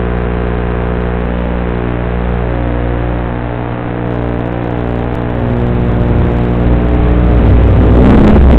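Small FPV quadcopter's brushless motors and propellers buzzing at a steady pitch that shifts and grows louder over the last few seconds. Near the end it turns into a rough static hiss as the analog video signal breaks up.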